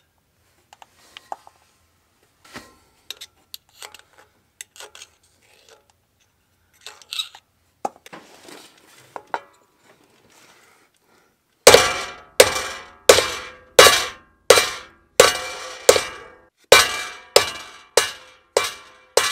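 Hammer blows on a bushing driver, seating a new oil-impregnated pilot bushing into the crankshaft's pilot bore: about a dozen sharp, ringing strikes, roughly one every 0.7 s, starting a little past halfway. Before them, faint scattered clicks and scrapes of a pick clearing bread crumbs out of the bore.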